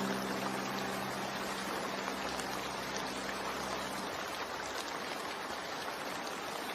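Steady rain falling, a constant patter of drops, with the last held low note of the music fading out about four seconds in.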